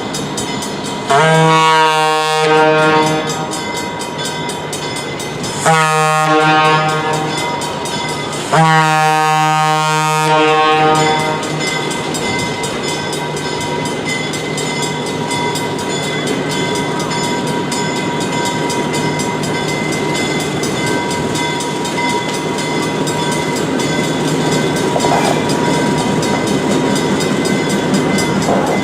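Locomotive horn sounded in three blasts, the last the longest. Then the train runs steadily, its engine and cars slowly getting louder as it comes closer.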